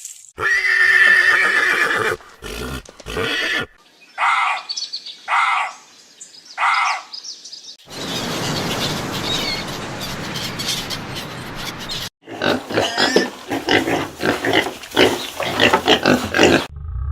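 A run of separate animal calls joined by abrupt cuts: a pitched call at the start, three short calls between about four and seven seconds in, then a noisy stretch and a quick irregular rhythm of sounds.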